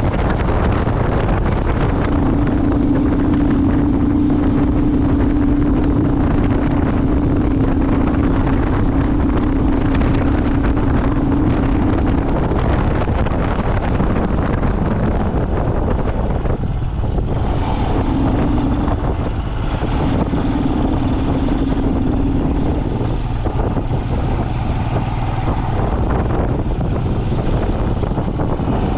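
Motorcycle riding at speed, with heavy wind buffeting the microphone. A steady engine note holds for long stretches, drops away around the middle, and comes back briefly later.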